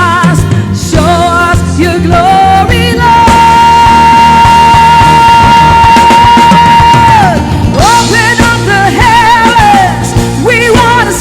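Live worship band music with a wordless sung voice over a steady band; about three seconds in, one long high note is held for some four seconds before the voice wavers on again.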